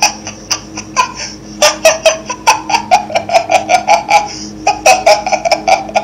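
A person laughing: a long run of quick, repeated "ha" bursts, about four to five a second, setting in about a second and a half in and keeping on to the end with a brief pause partway.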